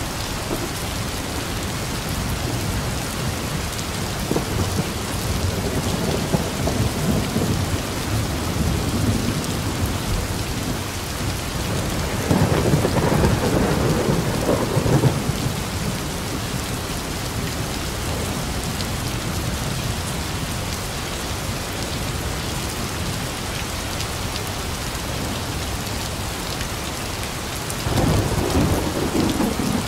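Heavy rain falling steadily, with thunder rumbling twice: a roll lasting about three seconds roughly twelve seconds in, and another starting near the end.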